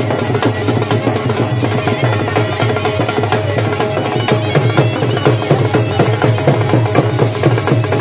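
Traditional folk drums beaten in fast, dense strokes, with a steady held note running behind them.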